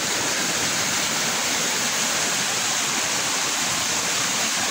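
Shallow river water rushing over rocks in small rapids, a steady, unbroken rush of white water.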